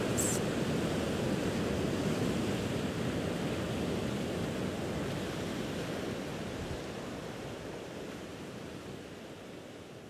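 Recorded ocean surf ambience, a steady soft rush of waves, slowly fading out.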